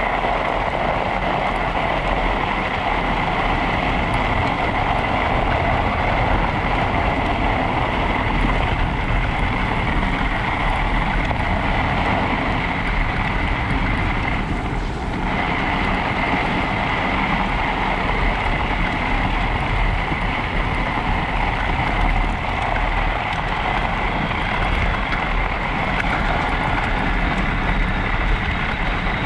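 Electric mountain bike ridden over packed snow: a steady high motor whine over continuous tyre noise on the snow and wind buffeting the microphone.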